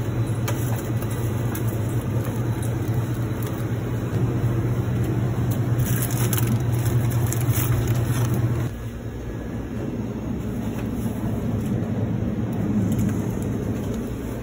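Steady low hum of convenience-store refrigerated display coolers, with plastic food packaging crinkling about six to eight seconds in. The hum drops lower and quieter a little past halfway.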